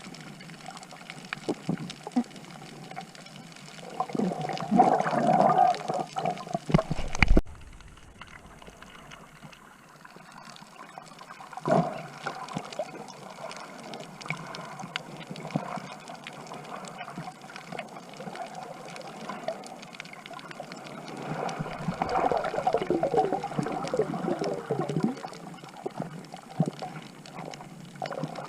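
Water gurgling and sloshing around a snorkeler's camera, with two louder stretches of gurgling, one a few seconds in that ends with a low thump and one about three-quarters through.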